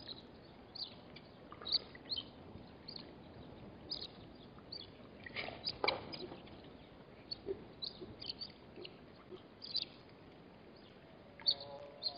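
Short, high chirps of small birds, one every second or so, over a faint steady hiss of wind on the microphone. Near the end a brief pitched call with several stacked tones starts lower down.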